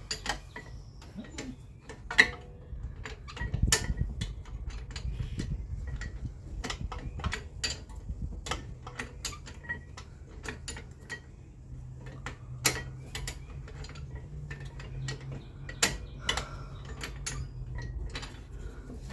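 Metal hand tools clicking and clinking irregularly as bolts are worked on a car's rear brake and wheel-bearing assembly, over a steady low hum.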